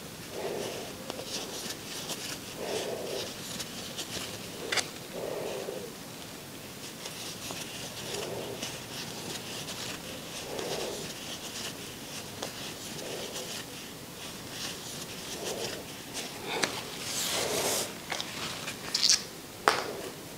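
Crochet hook and yarn worked through single crochet stitches: soft rustling and scraping picked up close on a clip-on microphone, with a few small clicks and a louder rustle near the end.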